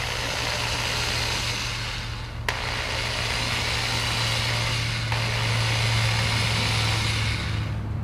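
Electric drill running steadily as a small bit bores through a Roomba side brush's nylon motor shaft, dipping briefly with a click about two and a half seconds in and stopping near the end. The bit breaks out the other side of the shaft.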